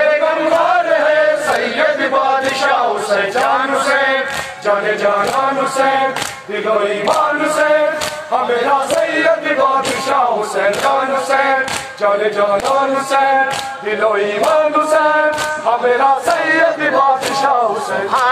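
A crowd of men chanting a Muharram noha in unison, with rhythmic chest-beating (matam) slaps about twice a second.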